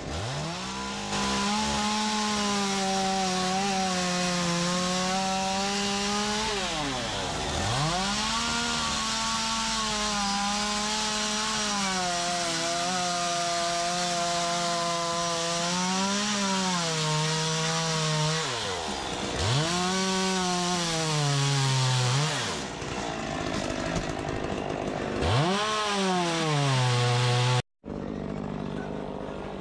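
Chainsaw cutting into a western red cedar log. The motor revs up high and drops back several times between cuts, its pitch sagging as the chain bites in under load. The sound cuts out abruptly near the end and comes back fainter.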